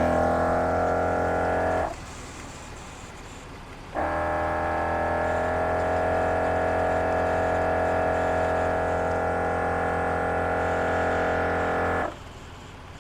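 Air compressor running a MORRflate four-tire inflation hookup, a steady droning hum, inflating the tires toward a set 40 psi. It cuts out about two seconds in, starts again about two seconds later, then stops again near the end.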